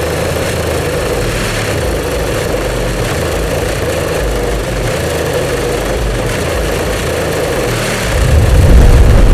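Heavy bass pounding from the box Chevy's trunk-mounted subwoofers, loud enough to rattle the trunk lid ('trunk slappin'), turned up louder about eight seconds in.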